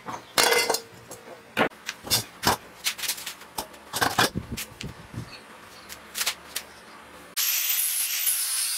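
Irregular sharp metallic clanks and knocks as parts of a steel LPG gas cylinder, including its cut-off foot ring, are handled and knocked against each other and the concrete floor. Near the end a loud steady noise starts abruptly.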